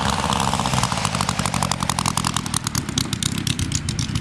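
Kolm 310 cc four-cylinder inline four-stroke model aircraft engine running throttled back as the model lands and rolls out. Its separate firing pulses can be heard as a fast, even beat.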